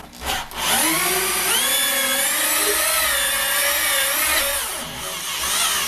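Ryobi hand drill with two-stage gear reduction driving a hole saw into a metal-clad door, cutting with a high-pitched, wavering squeal. It eases off briefly near the end, then bites again.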